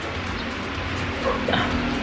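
Background music with steady low held tones, and a brief faint sliding sound about a second and a half in.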